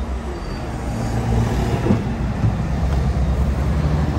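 A running engine makes a steady low hum, with a single short knock about two seconds in.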